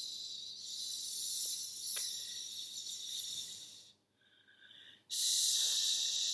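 A woman's voice making long, breathy hissing sounds as wordless light-language vocalizing. The hiss stops for about a second roughly two-thirds of the way through, then starts again louder.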